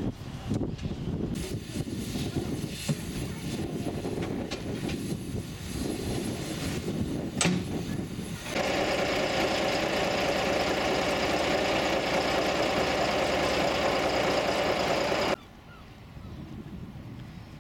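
Wind buffeting the microphone outdoors. Then, from about eight seconds in, a narrow-gauge Garratt steam locomotive standing with a loud, steady hiss of escaping steam for about seven seconds. It cuts off suddenly to quieter outdoor sound.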